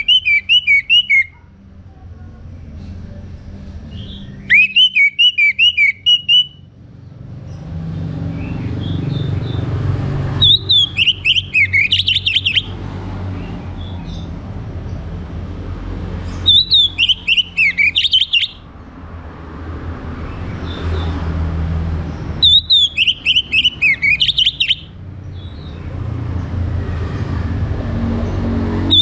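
Orange-headed thrush singing in short, loud phrases about every six seconds. Each is a quick run of whistled notes falling in pitch, over a steady low background rumble.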